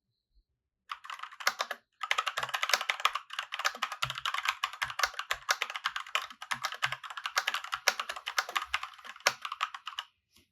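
Fantech MK853 mechanical keyboard with red linear switches being typed on quickly: a dense run of key clacks, with a brief pause about two seconds in.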